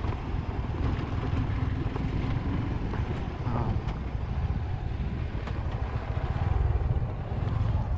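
Motorcycle engine running as the bike rides along at low speed, with a steady low rumble throughout.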